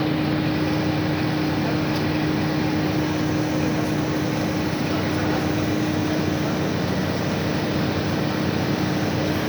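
Absorbent cotton processing machine running steadily: an even mechanical rush with a constant hum.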